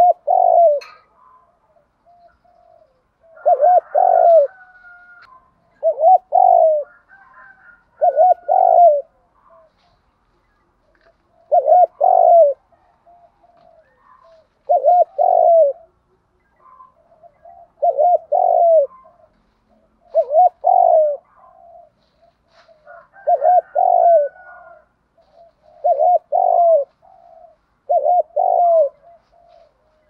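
Spotted dove cooing: short coo phrases of two or three notes, repeated every two to three seconds, about eleven in all.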